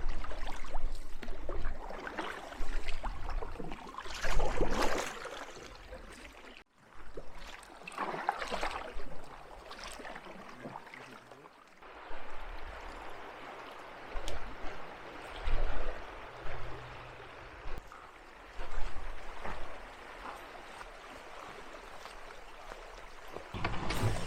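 Canoe paddling on open water: paddle strokes splashing and water trickling off the blade, in swells every couple of seconds. The sound briefly cuts out about seven seconds in.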